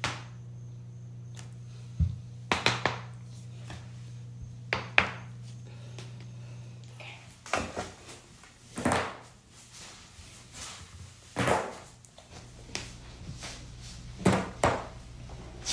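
Back cracks: spinal joints popping under manual pressure, heard as a series of sharp cracks and thuds, some in quick runs of two or three, spread over several adjustments. A steady low hum lies under the first half.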